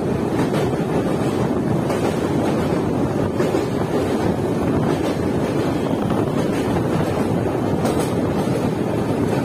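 Passenger train running across a steel truss bridge, heard from an open door or window: a steady, loud rumble of wheels on rails with a few faint irregular clicks. Wind buffets the microphone throughout.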